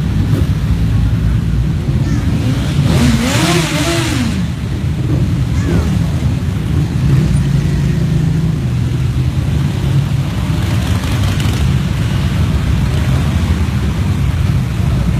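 Motorcycle engines of a passing convoy running steadily, with one bike revving louder, its pitch rising and falling, about three seconds in.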